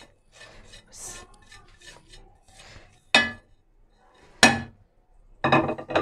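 A small glass bowl clinking twice against a glass mixing bowl, about a second apart, with soft scraping as salt and cumin seeds are tipped and tapped out into it.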